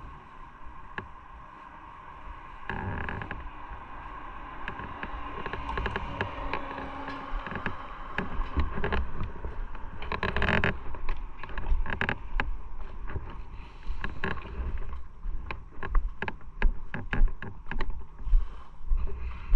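Motorcycle running along the road, its engine a steady drone, with wind buffeting the microphone in uneven low thumps that grow more frequent in the second half. A brief loud rush of noise comes about halfway through.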